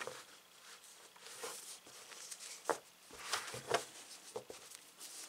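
Hands folding and turning a crocheted macrame-cord purse right side out: faint rustling and rubbing of the cord, with a couple of sharper knocks midway.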